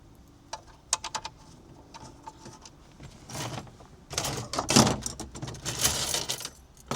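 Hands handling small dash bolts and plastic trim: a quick run of light clicks and taps about a second in, then louder rustling and scraping from about three seconds in.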